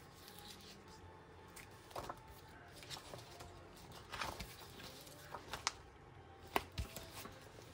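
Sheets of plastic letter stickers being handled and shuffled on a desk: scattered soft crinkles, taps and clicks, with the sharpest tap a little past the middle.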